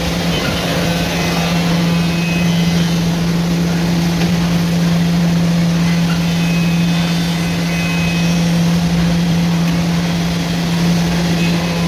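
Woodworking machinery running steadily: a constant low hum with a whirring, noisy wash over it.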